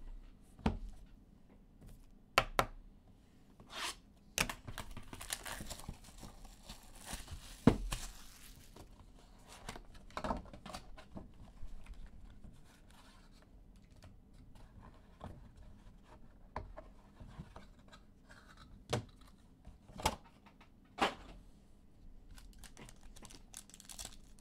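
A box of trading cards being unwrapped and opened: plastic wrapping torn and crinkled, with a longer stretch of tearing a few seconds in. Scattered sharp taps and clicks of cardboard and card holders being handled run through the rest.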